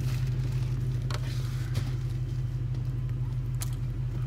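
An engine running steadily with a low, even drone, with a few faint clicks over it.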